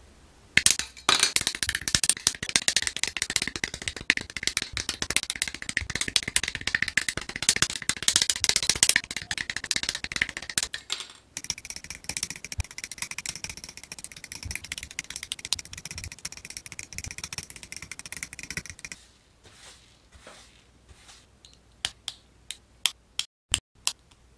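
Small plastic model-kit parts rattling and clicking as they are handled, then rubbing against each other, and near the end several sharp snaps as the head armour pieces click into place.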